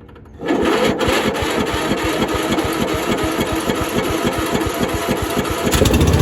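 Troy-Bilt Bronco riding mower's 18.5-horsepower overhead-valve engine being cranked by its electric starter, a steady rapid chugging of about five compression strokes a second. Near the end it catches and starts running louder, on the slow throttle setting without choke.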